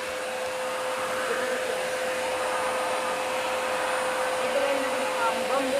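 Bagged vacuum cleaner running steadily, an even rush of air with a constant motor tone.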